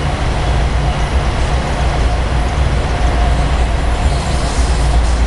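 Train rumbling along the rails: a loud, steady low rumble with a faint, steady high squeal tone above it.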